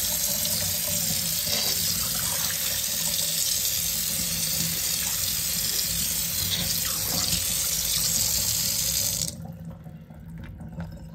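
Kitchen tap running in a steady stream into a stainless steel sink and draining through a sink strainer. The tap is shut off suddenly about nine seconds in, leaving faint drips and trickling.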